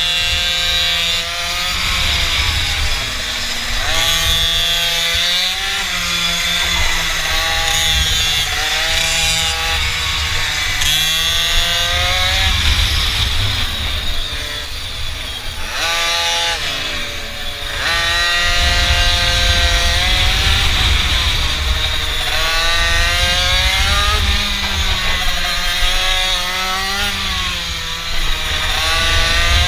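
Small mini bike engines revving up and down over and over as the bikes ride, more than one engine heard at times, with wind rumble on the microphone.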